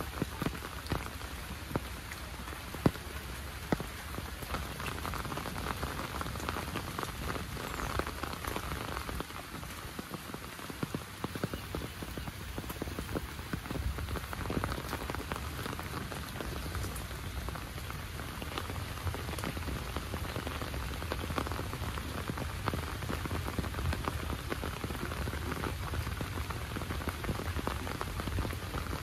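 Heavy rain falling steadily, a dense patter of drops, with a few louder sharp taps of drops in the first four seconds.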